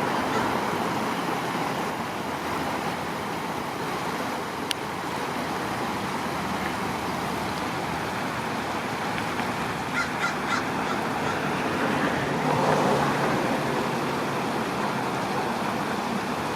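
Steady noise of a river flowing, with a bird giving a quick run of four or five short calls about ten seconds in.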